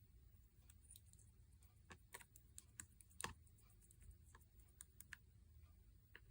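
Faint, irregular light clicks and taps, a dozen or so, bunched in the middle, with the loudest a little after three seconds in, over a quiet low room hum.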